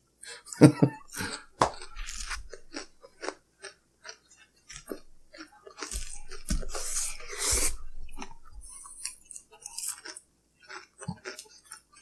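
Close-miked chewing and wet mouth sounds of people eating tater tots, with scattered small clicks and crunches. A louder, rougher noise comes about six to eight seconds in.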